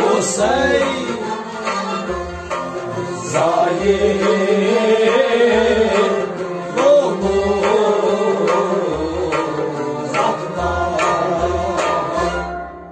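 A Kashmiri Sufi song performed by a male voice singing over a harmonium drone and a plucked rabab, with a drum keeping a steady beat of about one stroke a second.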